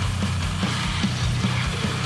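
Deathgrind recording: down-tuned, distorted guitars and drums playing loud and dense, with a steady beat of about five hits a second.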